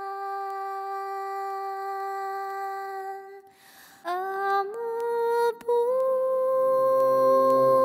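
Female voice singing long held notes in a slow Sanskrit mantra-style song. One steady note lasts about three and a half seconds, a short breath follows, then she slides up in small steps to a higher note and holds it. Faint low accompaniment comes in under it near the end.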